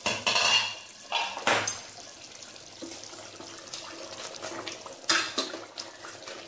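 Metal spoon stirring thick curry gravy in a steel pot: wet sloshing and scraping, with a few sharper clatters of metal against the pot near the start, about a second and a half in, and about five seconds in.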